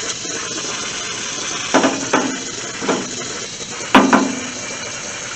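Garden hose spraying water in a steady hiss, with four hollow metallic clunks about two, two and a half, three and four seconds in. The last clunk is the loudest.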